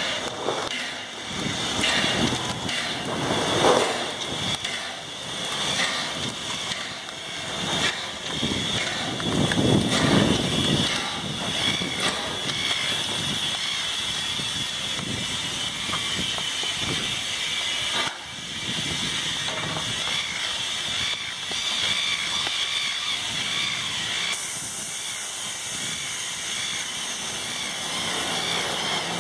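Small steam tank locomotive hissing steadily as it stands with steam up, with uneven louder rushes of noise in the first half.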